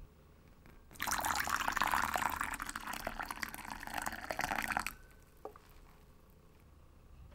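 Warm water poured in a steady stream into a ceramic bowl of syrup, splashing and filling for about four seconds before stopping abruptly. A single small drip follows just after.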